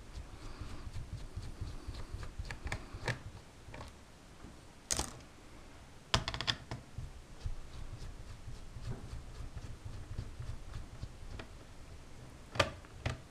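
A screwdriver undoing the small keyboard screws of a Dell Inspiron 1501 laptop: light scraping and ticking of the tool in the screw heads and on the plastic, with a few sharp clicks. The loudest clicks come about a third of the way in, a short cluster just after, and one near the end.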